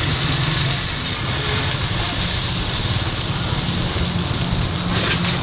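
Coconut rice batter sizzling in the cups of a hot num krok pan over charcoal, a steady hiss, with a steady low engine rumble underneath.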